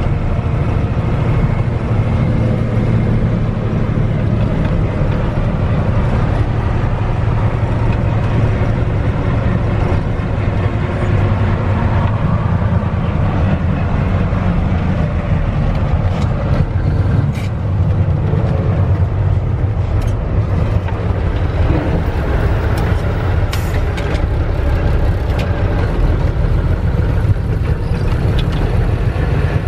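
Mack R-Series truck's diesel engine running steadily under way, with road and cab noise, heard from inside the cab. A few light clicks or rattles come through in the second half.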